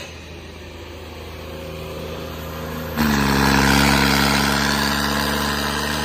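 Tractor diesel engine being revved. It climbs gradually, turns abruptly much louder about three seconds in, and holds high, easing off slightly toward the end.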